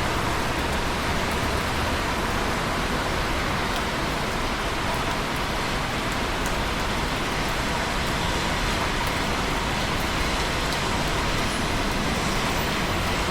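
Steady heavy rainfall, an even hiss with faint scattered drop ticks.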